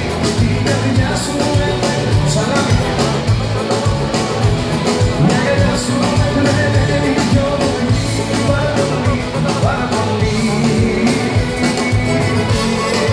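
Live band playing Greek pop music with a steady drum beat and guitars, loud.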